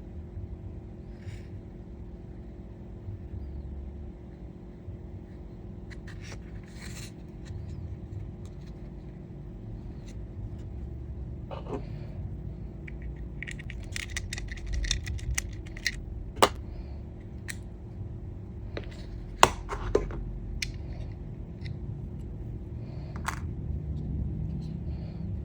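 Hands handling a small diecast model car's box and plastic packaging: scattered clicks, scrapes and light rattles, with three sharp clicks in the second half, over a steady low rumble.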